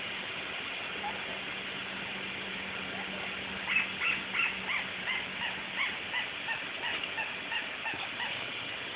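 Squeaky dog toy squeaking over and over, short high squeaks at about three a second, starting about four seconds in.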